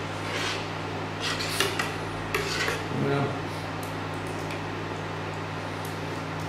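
Metal spoon scraping and clinking against the inside of a stainless steel saucepan while stirring a thick sauce, several strokes in the first three seconds, then stopping as the spoon is lifted out. A steady low hum runs underneath.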